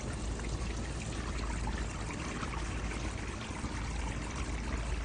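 A steady pouring sound: an even rushing hiss that runs without a break.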